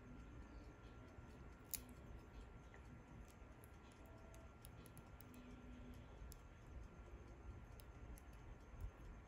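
Near silence with faint, scattered small clicks of a wristwatch being handled, one sharper click nearly two seconds in.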